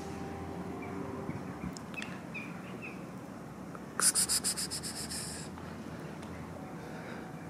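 Small birds chirping faintly in the background, then about four seconds in a loud, rapid scratchy rattle of some ten pulses lasting about a second and a half and fading out.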